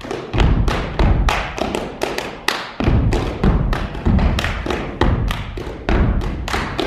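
Gumboot dance: rubber boots stomping on a wooden stage and hands slapping the boots in unison, a fast rhythm of sharp thuds and slaps about three to four a second, with a brief pause about two and a half seconds in.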